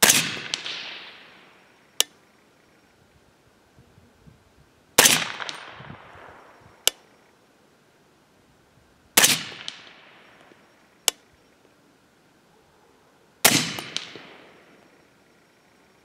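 Four shots from a suppressed AR-style .300 Blackout rifle firing 147-grain FMJ handloads, about four to five seconds apart, each a sharp report trailing off in a long echo. A short sharp crack comes about two seconds after each of the first three shots.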